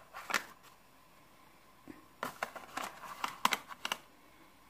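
Cardboard box of cornflour rustling and crinkling as it is handled and tipped over a glass mixing bowl. There is a short rustle near the start, then a run of quick rustles from about two seconds in until near the end.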